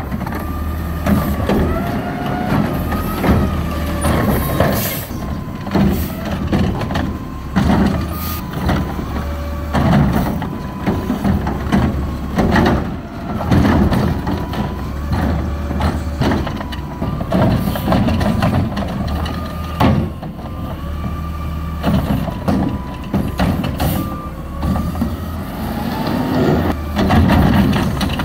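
Garbage truck's diesel engine revving up and down to drive the hydraulics of the front-mounted carry can's automated arm, with a whine that rises and falls with each rev. Clunks and bangs come as the arm dumps a plastic cart and grabs bulky items.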